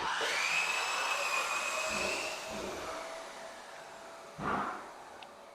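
A small electric motor, likely a power tool, starts abruptly with a high steady whine, runs strongly for about two seconds, then fades away. A short rushing noise comes near the end.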